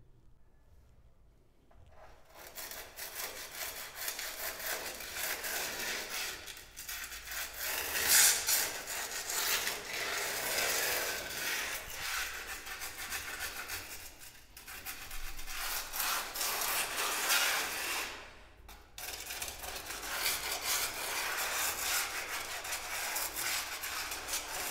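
Edge of a worn, hand-held abrasive metal cut-off disc scraping hardened tile adhesive out of the joints between tiles. The scraping starts about two seconds in and goes on with a few short pauses.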